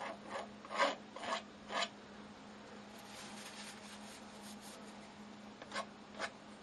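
Metal palette knife scraping and dragging through acrylic paint on a stretched canvas in short strokes: four quick strokes in the first two seconds, a quieter rub in the middle, then two more strokes near the end.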